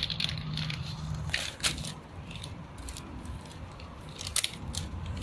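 Paper soup-spice packet being handled and opened: a few sharp crackles and clicks, about a second and a half in, again shortly after, and near the end, over a low steady hum.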